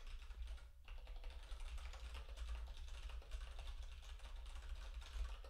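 Typing on a computer keyboard: a quick, dense run of key clicks with a brief pause about a second in, over a low steady hum.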